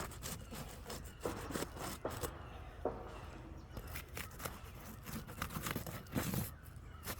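Aged asphalt roof shingles scraping, rubbing and crackling as a roof snake and roofer's hatchet work them loose to get at the nails, with a run of short sharp clicks and scrapes.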